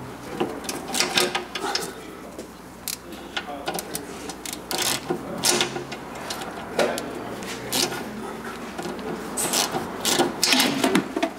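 Hand ratchet clicking in short, irregular bursts as it turns a bolt into a car's fender panel.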